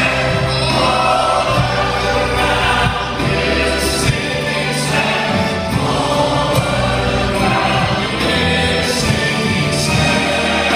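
Large church choir singing a gospel worship song, led by a woman singing at a microphone, over instrumental accompaniment with steady low bass notes and drum strikes.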